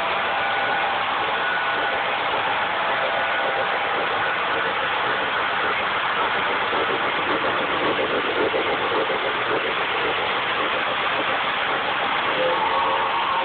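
O-gauge model trains running past on three-rail track: a steady rumble of wheels and rolling freight cars mixed with the diesel engine sound from the locomotives' sound systems. A new steady hum joins near the end.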